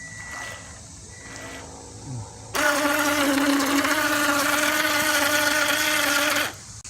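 Electric RC speed boat's motor whining at a steady high pitch for about four seconds, starting about two and a half seconds in and cutting off suddenly.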